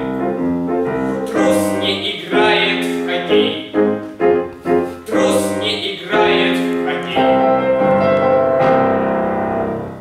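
A boy's solo voice singing with grand piano accompaniment, ending the song on a long held note that begins about seven seconds in.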